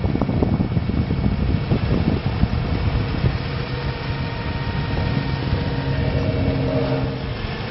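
Truck's 6.7L Cummins diesel engine running steadily, driving the hydraulics of the bucket boom. A steady mechanical hum rises over it a few seconds in and drops away near the end. Wind gusts buffet the microphone in the first couple of seconds.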